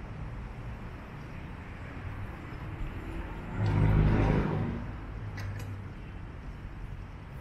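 Street traffic rumbling steadily, with a vehicle passing close by about three and a half seconds in, its engine and tyre noise swelling quickly and fading over about a second.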